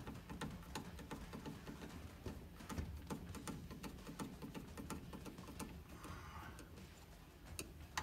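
Screwdriver turning the clamp screws of a turn-signal switch on a steering column: faint, irregular little clicks and ticks of the tool, screw and metal clamp, with one sharper click near the end.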